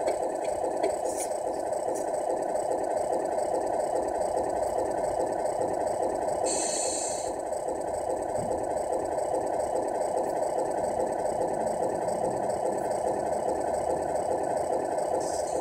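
Simulated diesel engine idling steadily from the Tamiya MFC-01 sound unit's small speaker in the 1/14 Scania R470 RC truck, with a short hiss about six and a half seconds in.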